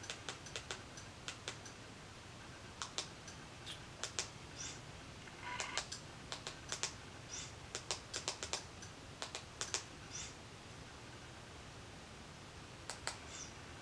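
Faint, irregular clicks of buttons being pressed in quick runs, with short pauses between runs, as menus are stepped through. A brief buzzy sound comes about five and a half seconds in.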